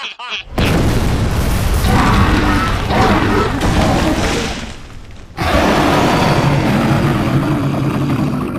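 Two long, loud rumbling cartoon sound effects, the first lasting about four seconds and fading, the second starting again after a short dip about five seconds in.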